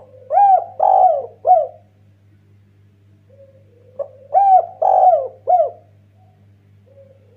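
Spotted dove (derkuku) cooing: two phrases about four seconds apart, each a low drawn-out lead-in followed by three short arched coo notes, with a third phrase starting near the end. A faint steady electrical hum lies underneath.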